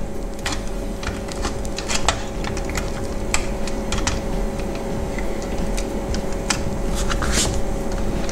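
Irregular small clicks and scrapes of a tool prying and bending open the sheet-metal locking tabs on the metal frame of a VW instrument cluster.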